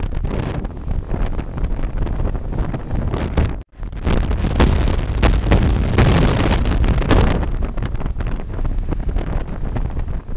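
Heavy wind buffeting the microphone of a camera in a moving car, with the rumble of the car's travel underneath and scattered crackles. The sound breaks off for an instant a little after three seconds in, then resumes.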